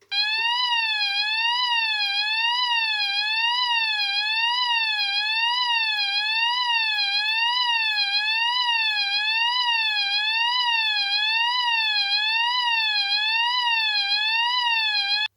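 AE&T T105N electronic fire alarm sounder sounding its tone no. 3: a loud, high-pitched sweeping tone that slides evenly up and down a little faster than once a second, then cuts off suddenly.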